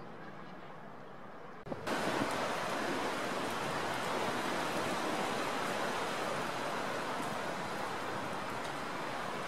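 Steady rushing noise of strong wind and a distant jet airliner's engines during a crosswind landing. The sound cuts abruptly to a louder, brighter rush a little under two seconds in.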